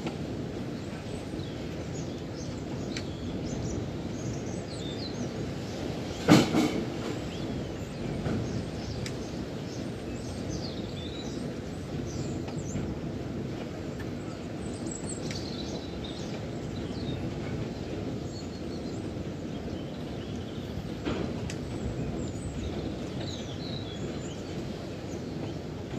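Steady wind rumble around a tower windmill as its sails turn, with small birds chirping now and then. A single sharp knock about six seconds in, and a fainter one later.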